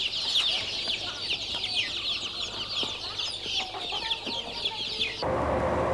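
Many caged birds chirping and peeping at once, a dense overlapping chorus of short, high, falling chirps. A little after five seconds it cuts off suddenly to a steady engine and street-traffic rumble.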